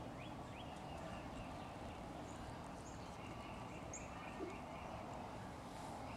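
Steady low background hiss and hum with a few faint, short high chirps.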